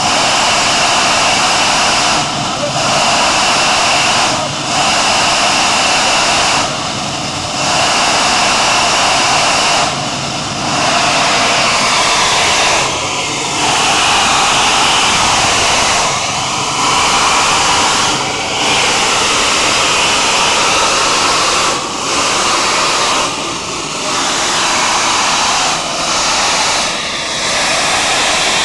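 Pressurised gas jetting out of a leaking underground crude-oil pipeline through a hole in the ground: a loud, steady hiss that dips briefly every few seconds.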